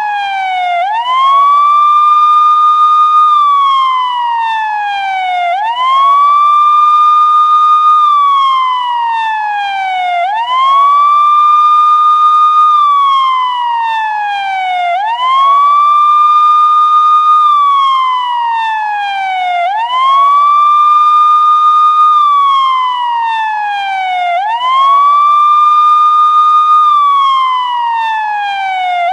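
Police siren sounding a wail: the pitch rises quickly, holds for a second or so, then slides slowly down, over and over about every five seconds.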